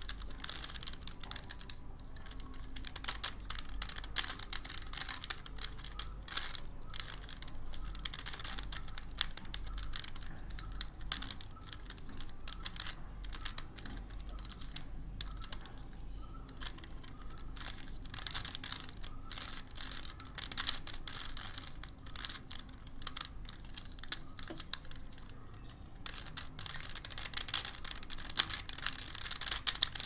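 Stickerless plastic 3x3 Rubik's cube being turned by hand: rapid, irregular clicking and clacking of the layers as they rotate, with a dense flurry of turns near the end.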